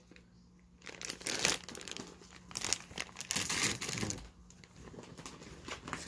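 Plastic packaging and a brown paper grocery bag crinkling and rustling as they are handled. The crinkling is irregular and starts about a second in.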